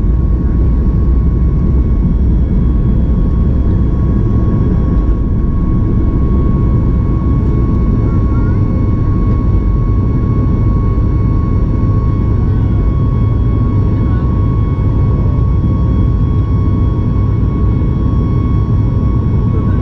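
Boeing 737 MAX 8's CFM LEAP-1B jet engines running steadily, heard inside the cabin: a loud, even rumble of engine and airflow with a steady high whine over it.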